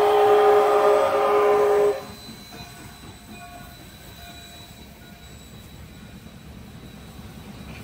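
Canadian Pacific 2816 steam locomotive's whistle sounding a loud, steady chord that cuts off suddenly about two seconds in, leaving a much quieter low rumble.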